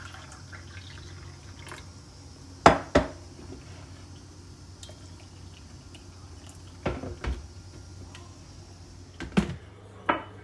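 Turkish tea being poured into a glass tea cup: strong brew from the teapot, then a top-up of hot water from the kettle, with a faint trickle of liquid. Sharp clinks of glass and pot on the stone countertop punctuate it: a loud pair a few seconds in, more near the middle, and a couple near the end.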